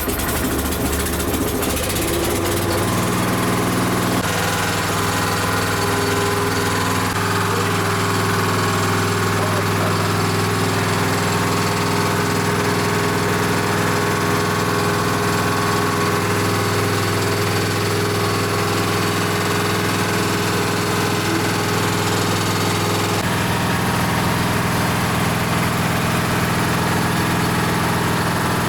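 An engine running steadily, its speed shifting a few times: once or twice in the first few seconds, and again about 23 seconds in.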